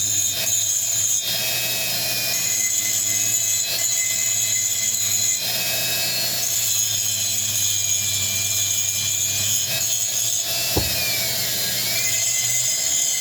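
Handheld rotary tool with a cone-shaped diamond bit grinding, taking the sharp edge off a chainsaw cylinder's bore; a steady high whine. Near the end the whine dips in pitch and recovers as the bit bears on the metal, just after a single click.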